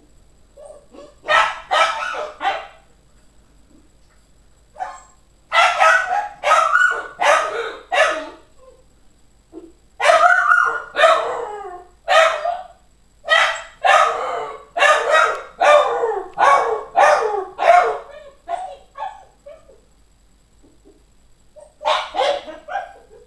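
Norwegian elkhound crying from his kennel in bursts of short yelping barks and whines, protesting at being shut in for the night. The calls come in several runs with short quiet pauses between them.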